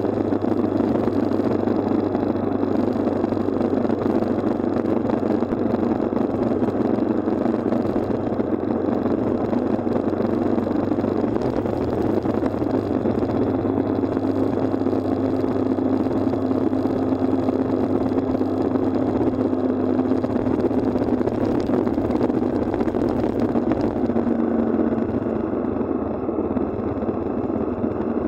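Motorcycle cruising at a steady speed, heard from the rider's seat: an even rush of wind and engine noise, with a faint steady hum added for a stretch in the middle.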